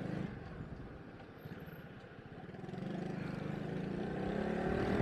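Small motorcycle engine under way: the engine note drops back for a second or two, then climbs steadily in pitch as the bike accelerates.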